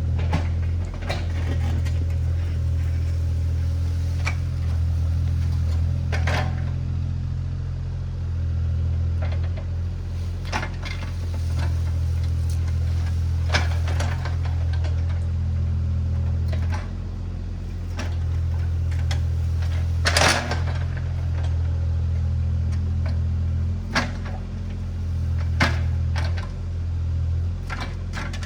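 Diesel engine of a compact earthmoving machine running steadily, with its drone dipping and rising a little as the load changes, and scattered clanks and knocks from the machine working.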